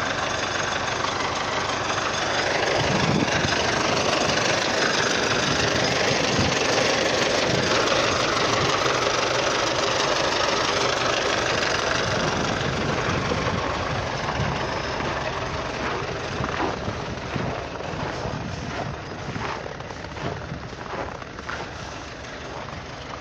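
Diesel engine of an MTZ (Belarus) tractor running steadily close by, a dense mechanical clatter that eases off somewhat in the second half.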